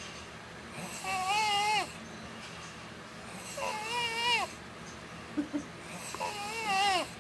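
A young child snoring in her sleep: three high-pitched snores of about a second each, roughly every two and a half seconds, each one wavering up and down in pitch.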